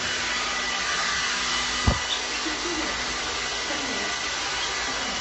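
Handheld hair dryer running steadily, with a single sharp knock about two seconds in.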